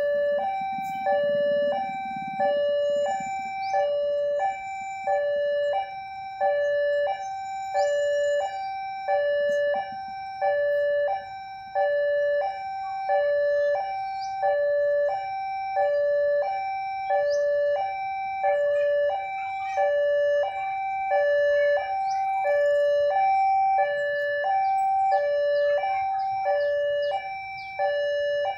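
Electronic warning chime of a railway level crossing, steadily alternating between a low and a high tone: the crossing is closed for an approaching train.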